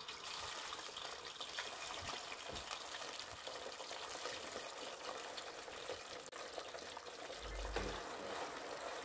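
Potatoes sizzling and crackling in a pot of hot oil as a batch of raw crinkle-cut fries is dropped in and stirred with a plastic slotted spoon. This is the first, partial fry of the chips.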